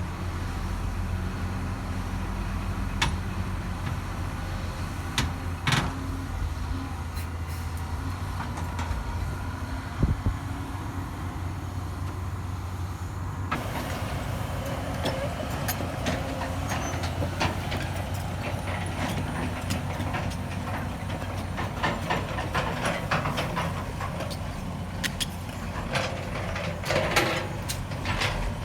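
Heavy construction-machine diesel engine running steadily, with scattered sharp metal clanks and knocks. The clanking becomes busier from about halfway on and is densest near the end.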